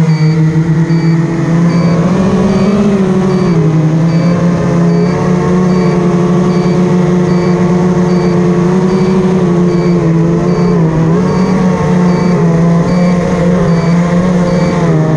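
Racing-quadcopter motors and propellers running with a steady whine, shifting in pitch a few times with the throttle and rising sharply at the end. Under it, a high beep repeats two to three times a second: the low-voltage alarm of a tired 4S battery.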